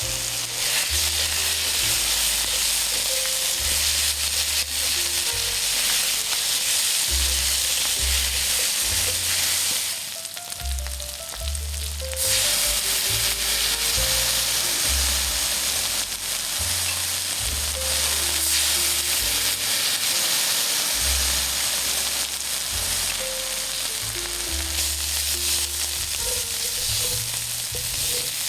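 Food sizzling and frying on a hot iron griddle as it is stir-fried, a steady crackling hiss. The sizzle drops away for about two seconds near the middle, then comes back.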